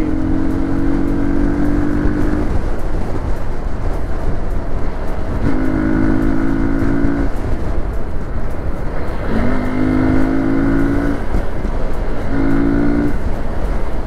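Hero XPulse 200 single-cylinder motorcycle on the move: steady engine and road noise, with a pitched droning tone that comes and goes four times, each lasting about one to three seconds.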